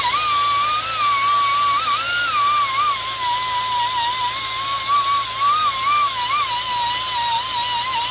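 Pneumatic Ingersoll Rand angle grinder with a zip cut-off disc running at speed and cleaning corrosion off the wheel hub mounting surface. It makes a high whine over air hiss, and the pitch wavers up and down as the disc is pressed into the metal.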